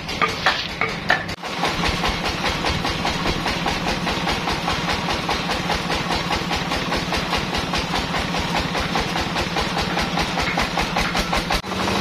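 Band sawmill's engine running steadily with a rapid, even chugging. The sound starts after a break about one and a half seconds in and cuts off just before the end.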